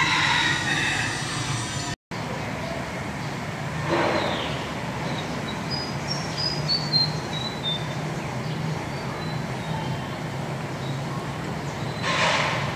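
Steady low background hum. About six seconds in, a small bird gives a short run of high chirps that step down in pitch, and brief rushing noises come near the start, about four seconds in and near the end.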